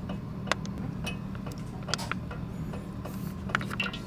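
A plastic sauce pouch being torn open and crinkled in the hands, with scattered sharp crinkles and clicks, then the seasoning sauce squeezed out of it and dribbling into a pan near the end.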